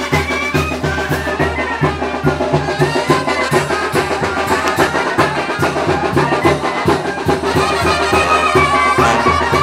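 Mexican street brass band (banda) playing: brass carrying the melody over a steady tuba bass beat, about two pulses a second, with drums.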